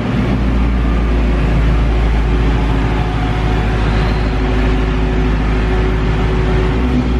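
Whipple-supercharged Shelby GT350R's 5.2-litre flat-plane-crank V8 with Borla exhaust idling as the car creeps into a parking space. It makes a loud, steady low rumble with no revving, and the concrete parking garage around it colours the sound.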